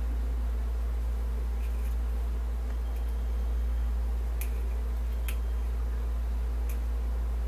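Steady low hum, with a few sharp clicks in the second half as a small blade works at a mussel shell to pry it open for its pearl.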